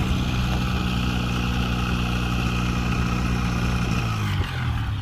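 Light aircraft's propeller engine running steadily at low power, then its pitch drops about four seconds in as the engine is throttled back and winds down.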